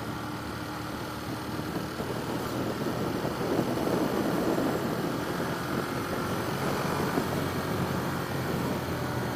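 Ducati Monster's V-twin engine running at highway cruising speed, with wind noise rushing over the helmet-camera microphone; the sound gets somewhat louder about three seconds in.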